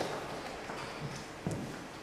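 A few footsteps on a hard floor, with one clearer step about one and a half seconds in.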